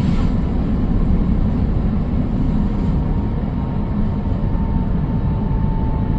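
Steady low rumble of a moving vehicle, with a faint high whine that rises slightly in pitch.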